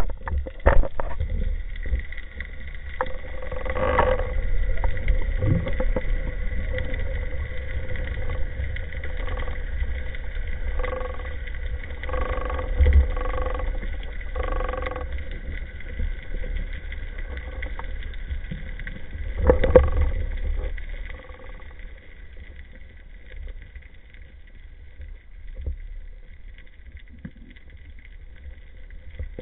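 Underwater recording as a diver swims: a low rumble of water moving against the camera housing, with a faint steady whine and a few brief louder swells. It settles to a quieter murmur about three-quarters of the way through.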